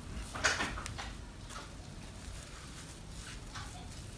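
Faint handling sounds of hands rolling up a thin omelette on a plate: soft rustles and light scrapes, with one brief louder scrape about half a second in.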